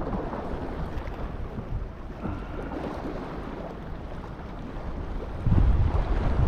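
Wind buffeting the microphone over the wash of waves on rocks; the wind rumble grows louder about five and a half seconds in.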